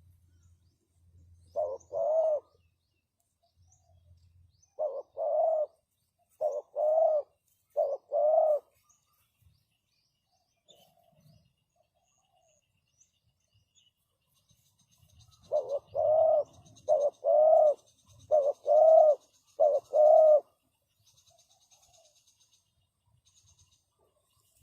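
Spotted dove cooing: two runs of its song, each four phrases of a short note followed by a longer one, about a second and a half apart, with a pause of several seconds between the runs. Faint high, rhythmic chirping runs underneath in the second half.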